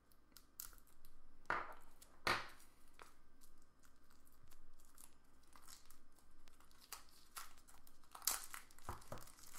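Plastic shrink wrap crinkling and tearing as it is peeled off a deck of cards, a run of small crackles with a few sharper rips.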